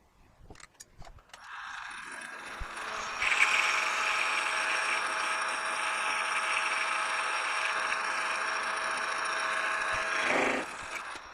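A lathe parting tool cutting into a spinning metal knob blank: a steady, loud screeching cut carrying several held tones, which steps up about three seconds in and stops suddenly near the end as the cut ends. A few light clicks come first as the blade is set.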